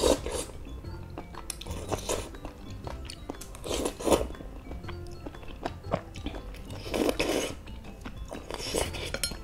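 A person slurping spicy noodles in several noisy slurps, about one every two seconds, with chewing in between.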